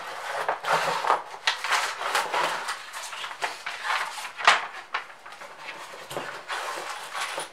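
Unpacking a boxed steel tire rack: cardboard and foam packaging rustling and scraping under handling, with irregular clicks and knocks and one sharp knock about four and a half seconds in.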